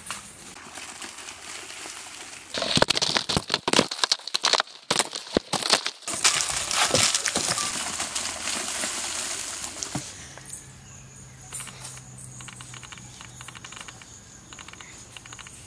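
Wrapped KitKat bars crinkling and clattering as they are tipped by hand onto a heaped pile. Sharp clatters begin about two and a half seconds in, give way to a denser rustle, and die down after about ten seconds.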